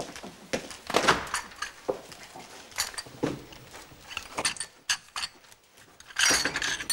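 Scattered knocks, clicks and rustling as things are handled at a desk and a wicker basket is picked up and rummaged in, with a longer rustle near the end.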